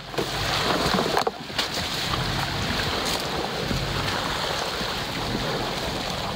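Wind rustling over the microphone, with the Subaru Forester's flat-four engine running at low revs underneath as the car crawls along a rutted dirt track.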